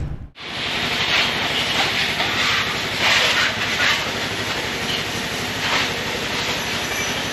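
Motorcycle on the move: a steady rush of wind and road noise over a fast, even engine pulse.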